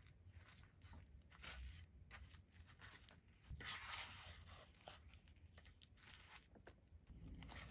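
Wooden spoon stirring thick yogurt with frozen berries in a wooden bowl: faint, irregular scrapes and crunches, the longest and loudest about three and a half seconds in.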